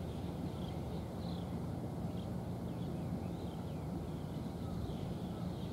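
Steady low drone of a distant engine, with faint short bird chirps now and then above it.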